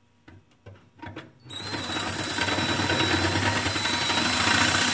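DeWalt cordless drill running steadily with a high whine, starting about a second and a half in after a few light clicks, drilling out a car's upper rear shock mount for larger hardware.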